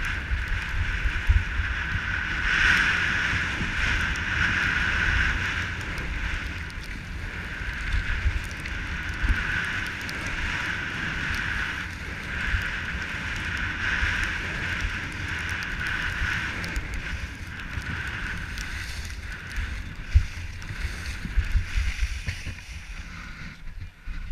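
Skis sliding over packed snow, a continuous hiss that swells and fades through the run, with wind buffeting the microphone in a low rumble.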